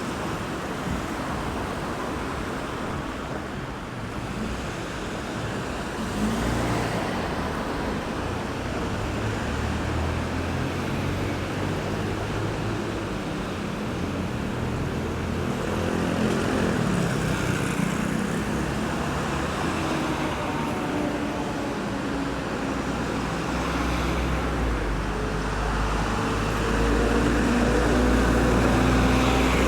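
Road traffic on a city roundabout at night: a steady wash of passing cars and buses with a low engine hum, growing louder as heavier vehicles pass about halfway through and again near the end.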